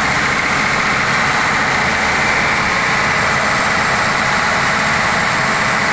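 Diesel engine of an Airman 655PDS portable screw air compressor running steadily on its test run after an airend service, a loud, even drone.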